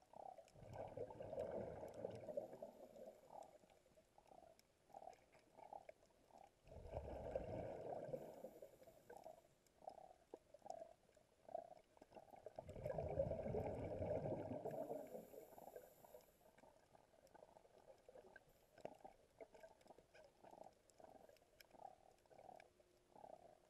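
Scuba diver breathing on a regulator underwater: three long exhalations of bubbles about six seconds apart, with a patter of small bubble pops in between.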